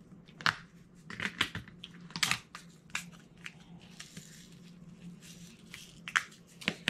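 Diamond painting pen picking up resin drills and pressing them onto the canvas: irregular light clicks and taps, a few each second.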